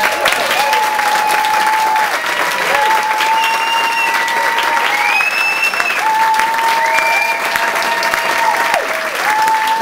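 Audience applauding and cheering, with several long, held whoops from voices over the steady clapping.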